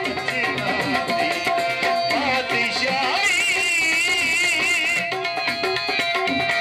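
Live South Asian folk music with no singing words: tabla keeping a steady rhythm under harmonium and bowed violin, and about three seconds in a high melody note with wide vibrato is held for about two seconds.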